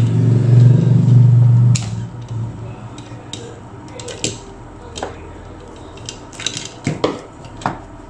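A loud low hum for about the first two seconds that cuts off suddenly, then scattered sharp clicks and clinks of wire cutters snipping and handling electrical cable.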